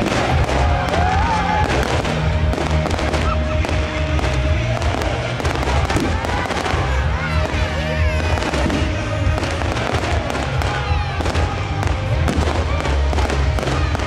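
Fireworks display: a rapid, irregular string of bangs and crackles from aerial shells bursting, with music playing underneath.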